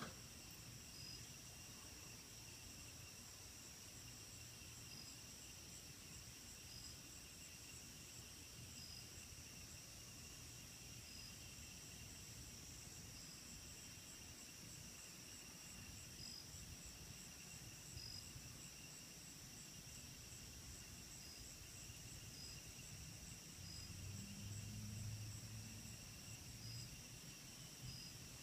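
Faint steady chorus of night insects such as crickets, several high trills going continuously, with a short higher note repeating every second or two. A faint low rumble swells briefly near the end.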